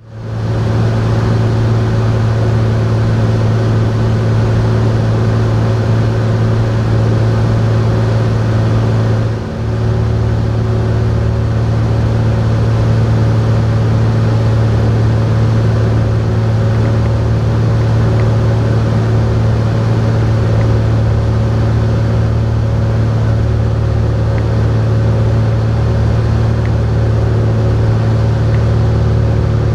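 Steady drone of a Cessna Hawk XP's six-cylinder piston engine and propeller, heard inside the cabin during the landing approach. It is a constant low hum with a brief dip and change in tone about nine seconds in.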